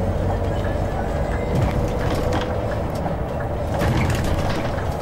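Inside a moving city bus: steady engine and road rumble, with small rattles and clicks from the cabin fittings.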